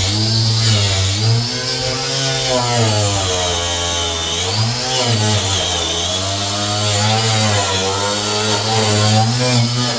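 Electric power tool with a wire wheel scrubbing rust off sheet metal, the motor's pitch sagging and recovering as it is pressed into the panel, over a steady high scratching hiss.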